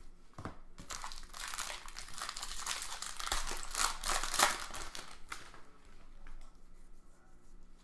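Baseball card pack's wrapper being torn open and crinkled by hand: a dense crackle for several seconds that thins out toward the end.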